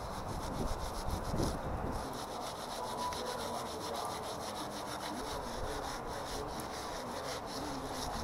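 Leather-gloved hands scooping wet cement from a plastic tub and rubbing and smoothing it onto a sculpture: a steady run of gritty rubbing and scraping strokes.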